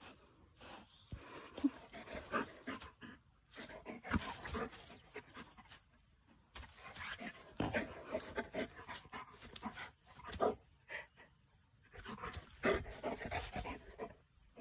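A dog sniffing and panting in short, irregular bursts, with grass rustling as it moves. A steady high whine comes in near the end.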